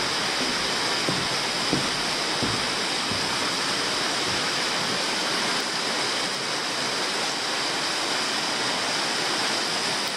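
A steady, even rushing noise with a few soft low thuds in the first few seconds.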